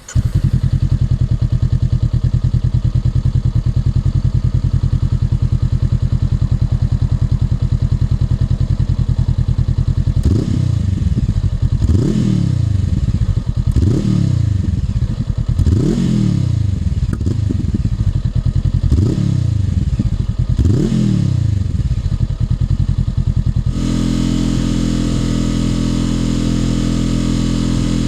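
Honda NX500's parallel-twin engine through a Black Widow UN30H slip-on exhaust, with its dB killer fitted. It idles steadily, then is blipped six times, each rev rising and dropping back. Near the end it switches abruptly to a steadier, higher engine note.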